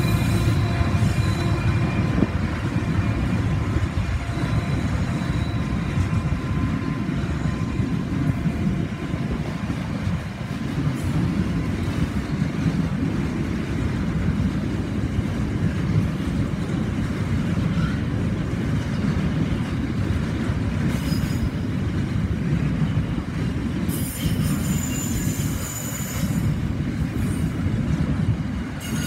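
Pacific National container freight train rolling past at close range, a steady low rumble of wagons on the rails. The trailing NR class diesel locomotive's engine tone fades over the first few seconds, and high-pitched wheel squeal rings out now and then near the end.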